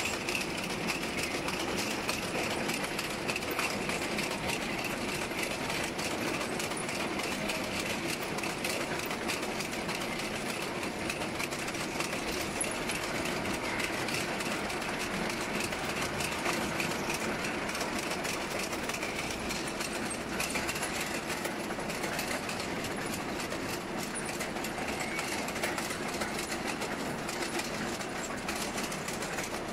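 Fruit weighing and grading line running, its chain of plastic fruit-cup carriers and drive motors giving a steady, dense mechanical clatter.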